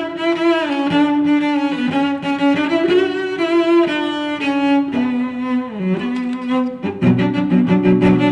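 Background music: a bowed string melody in the cello and violin range, with notes sliding from one to the next, joined by lower notes about seven seconds in.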